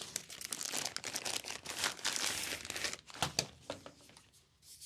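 Plastic packaging crinkling and rustling as it is unwrapped and handled, dense for about three seconds, then thinning to a few scattered rustles and clicks.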